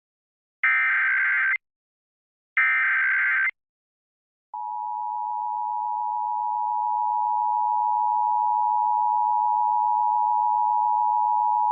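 Emergency Alert System SAME header data: two harsh, screeching digital bursts about a second long and a second apart, the header that encodes a Child Abduction Emergency (Amber Alert). About four and a half seconds in, the steady two-tone EAS attention signal begins and holds, the warning that precedes the spoken alert.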